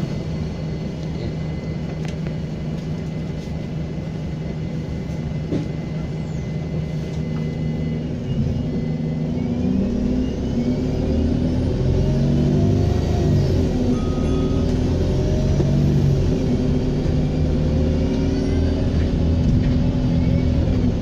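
Diesel engine of First South Yorkshire bus 67144 running steadily, then from about eight seconds in pulling away under load: the engine note climbs and drops through the gears. A high turbocharger whistle rises and falls over it.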